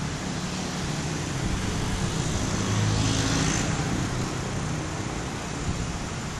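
Road traffic running steadily, with a motor vehicle passing that grows louder to a peak about three seconds in and then fades.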